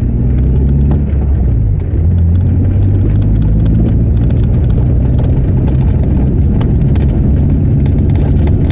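Small car driving at a steady road speed, heard from inside the cabin: a constant low drone of engine and tyres.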